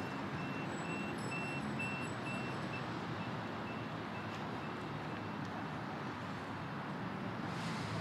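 Steady city street traffic noise, with a high electronic beep repeating about twice a second that fades away about five seconds in.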